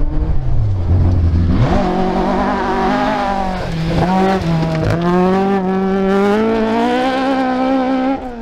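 Historic Ford Escort Mk2 rally car engine at full throttle. After a low drone in the first second and a half, the engine note climbs, dips briefly twice around the middle, holds high, and falls away near the end.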